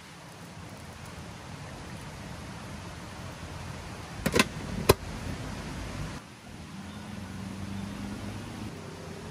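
Large metal pot of ketupat boiling on a wood-fired stove, with a steady hiss of steam and fire. About four seconds in come two sharp metal clanks half a second apart as the lid is set on the pot.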